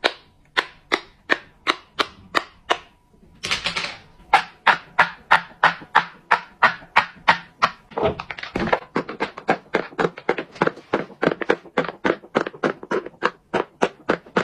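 Silicone pop-it fidget toys popped one bubble after another as fast as possible: first a flower-shaped dimple popper clicking about three times a second, then, after a brief rustle, the bubbles of a large square rainbow pop-it popping in a steady rapid run of clicks that quickens to about five a second.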